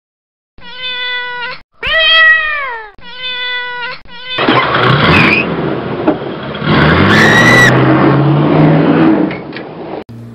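A cat meowing three times, each call about a second long, the middle one falling in pitch. It is followed by a loud, rough stretch of noise lasting about six seconds, with a short high cry partway through.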